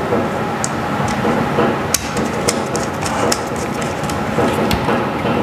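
Screwdriver and receptacle clicking and knocking, a few sharp metallic clicks, as the wires are fastened and the terminal screws tightened on a 20-amp outlet, over a steady background noise.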